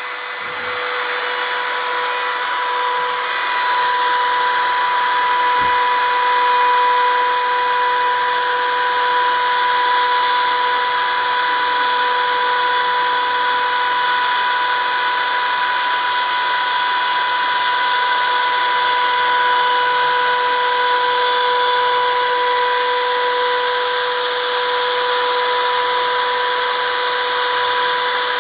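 The router spindle of a Millright Mega V XXL CNC machine running with a steady high whine while its bit cuts a first carve into a piece of wood; the sound grows louder about a second in and then holds.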